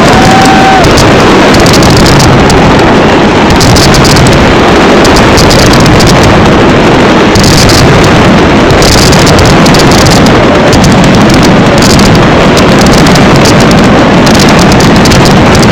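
Fireworks display recorded through an overloaded microphone: dense bangs and crackles merge into a constant distorted roar, with thin crackling on top.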